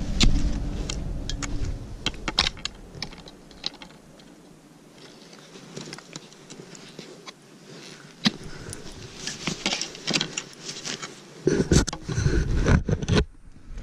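Cross-country skis and ski poles on packed snow: an irregular run of sharp crunches and clicks as the poles are planted and the skis slide and scrape. Heavy low rumbling bursts near the end.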